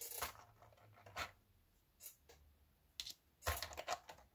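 Small injection-moulded plastic model parts being handled on the workbench: light, scattered clicks and rustles, with a quick run of clicks near the end.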